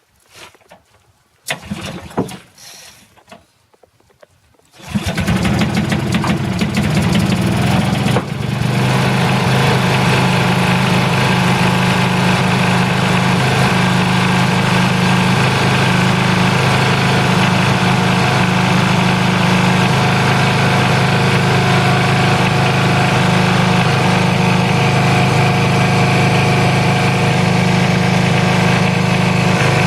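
Cold start of a John Deere 68 riding mower's Briggs & Stratton single-cylinder vertical-shaft engine after sitting all winter. A few irregular noises come first, then the engine catches about five seconds in. It shifts in pitch about three seconds later and then runs steadily.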